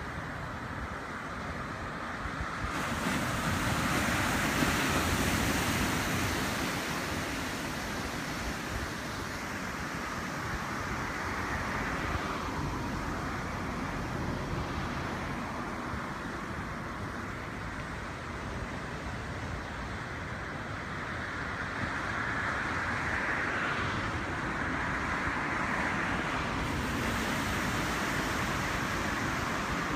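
Small surf washing onto a beach, a steady rush of waves that swells louder about four seconds in and again over the last several seconds.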